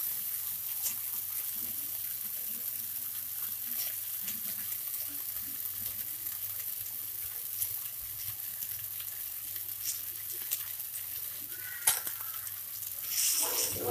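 Stir-fried vegetables and freshly added boiled noodles sizzling steadily in a frying pan, with a few faint clicks. A louder noise starts near the end.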